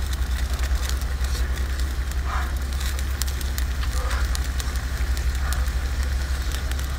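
Steady low rumble of a gas burner flame under a pot of steaming seafood, with light crackling scattered through it.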